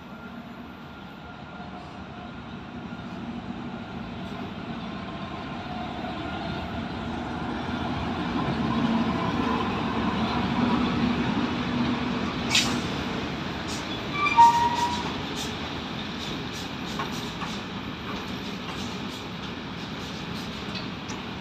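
Electric locomotive hauling a container freight train passing at speed: its rumble and motor hum swell as it approaches, with a sharp clank about twelve and a half seconds in and a brief squeal about two seconds later. The container wagons then roll by with a steady rumble and repeated clicks of wheels over the rail joints.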